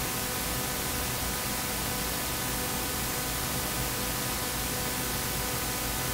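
Steady electrical static hiss with faint steady hum tones and no beep: the Apple IIe is not giving its startup beep on reset.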